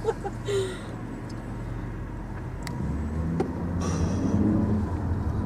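A car engine running, a low drone that comes in about three seconds in and grows louder.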